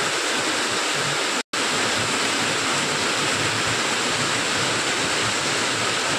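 Heavy rain falling steadily: a dense, even hiss that cuts out for an instant about a second and a half in.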